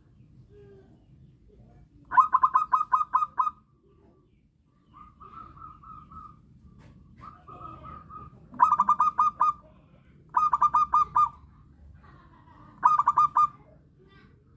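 Zebra dove calling: four quick runs of short staccato coos, with two softer drawn-out notes between them.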